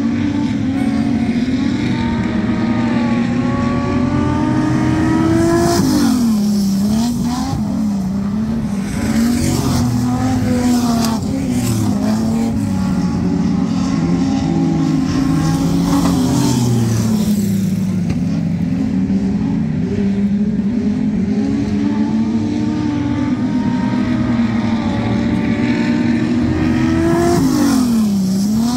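Speedway race cars lapping a dirt oval, engine pitch climbing and falling over and over as they accelerate and lift. The engine note dips sharply and picks back up about six seconds in and again near the end.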